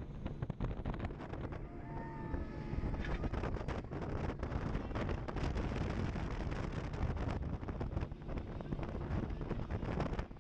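Wind buffeting the microphone aboard a boat underway, with a steady low rumble of engine and water beneath and frequent short gusts and knocks.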